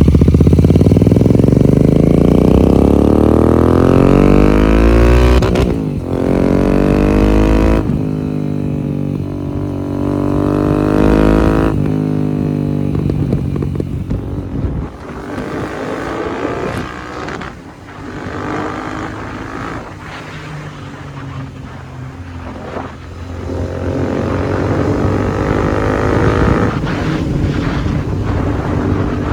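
Royal Enfield Interceptor 650's parallel-twin engine through a Red Rooster Performance aftermarket exhaust with its dB killer fitted, accelerating hard through the gears. The pitch climbs, drops at shifts about 6 and 8 seconds in and climbs again to about 12 seconds, then the engine eases off and runs lower and unevenly before pulling up again near the end.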